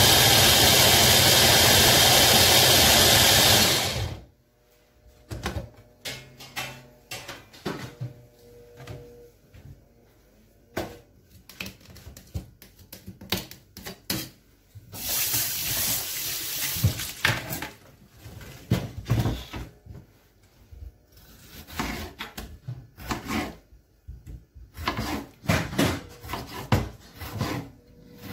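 A loud, steady motor noise from a kitchen blender cuts off abruptly about four seconds in. Scattered clicks and knocks of kitchen handling follow, with a couple of seconds of running water about halfway through.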